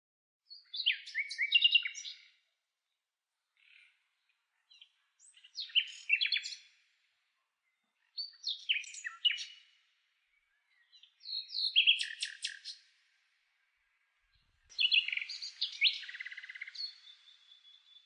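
Common nightingale singing: five separate song phrases of about two seconds each, with short pauses between, mixing whistled notes and rapid trills.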